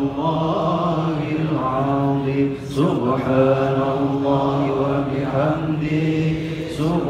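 Male congregation chanting dhikr together in a slow, drawn-out unison melody, with a brief break for breath about three seconds in and another near the end.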